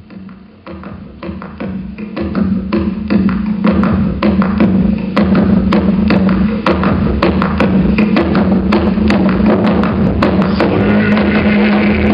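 Percussive music for the dance: repeated sharp drum beats over a held low note. It starts softly and builds over the first three seconds or so, then plays loud and steady.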